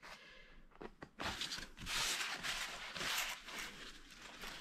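Stiff beeswax-waxed cotton fabric rustling and crinkling as it is handled and folded, loudest from about one to three and a half seconds in.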